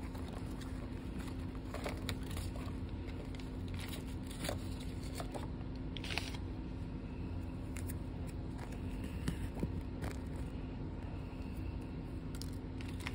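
Faint crinkling and light clicks from a paper tea bag packet being handled and a tea bag going into a glass mug, over a steady low hum.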